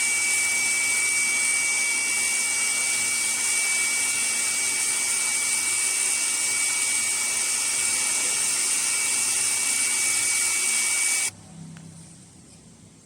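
Small electric power tool running at a steady speed with a high, even whine, switched off about eleven seconds in.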